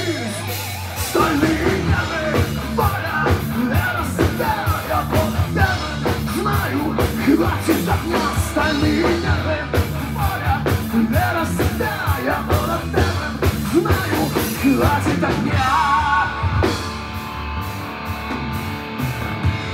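Heavy metal band playing live: lead vocals sung over distorted guitars, bass guitar and drums. About three-quarters of the way through the singing stops and the band plays on with held guitar notes and drum hits.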